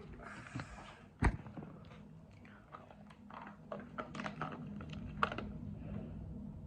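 Jelly beans being chewed close to the microphone: small wet clicks and smacks of mouths working, with one sharp knock about a second in.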